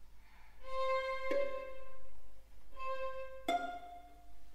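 Solo violin with string orchestra playing the closing notes of a slow piece: a high note held twice, then a sharp plucked attack whose notes ring and fade out.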